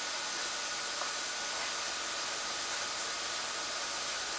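Machine shop drilling machine running, a steady hiss with a faint high whine, before the drill starts cutting.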